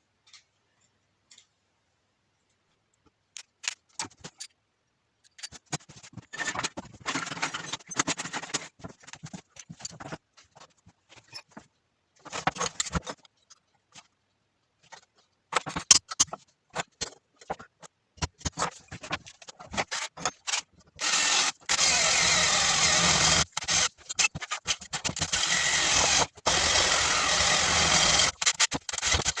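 Metal parts being handled, with scattered clicks and scrapes. From about two-thirds of the way in, a power tool runs in long bursts with a few brief stops.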